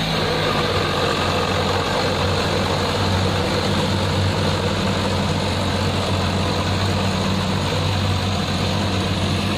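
Farm tractor engine running steadily at idle, powering the hydraulics of a rear-mounted boom sprayer.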